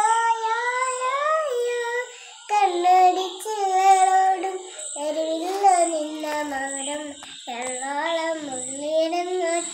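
A young girl singing a song, holding long notes in a wavering melody, with short breaths between phrases about two seconds in and again near seven seconds.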